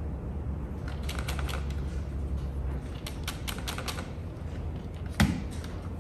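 Small plastic clicks and ticks as a stuck battery lead is worked at inside an opened Futaba Attack 4 radio transmitter, over a low steady hum. Then one sharp, louder snap about five seconds in, as the transmitter's power switch breaks.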